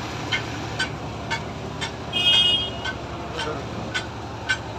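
Steady low engine drone of traffic and heavy machinery at a road construction site, with short sharp ticks about twice a second. A brief vehicle horn toot sounds a little over two seconds in.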